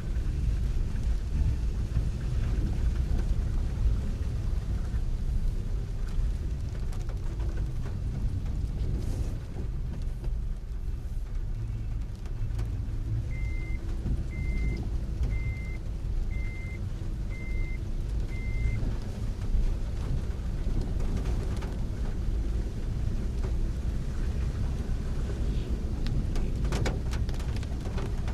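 Heavy rain and vehicles on a flooded road, a steady low rumble of engines and water with rain noise over it. About halfway through come six short, high beeps, roughly one a second.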